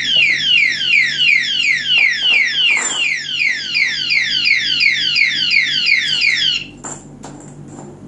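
Kinbar alarm padlock's built-in siren sounding continuously, a fast repeating series of falling electronic sweeps: the full alarm set off by the chain being touched a second time. It cuts off abruptly about six and a half seconds in, followed by a few light clicks.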